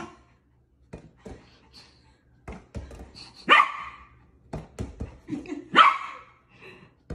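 A puppy barking: two loud, high barks, about three and a half and six seconds in, with a few soft knocks and thumps between them.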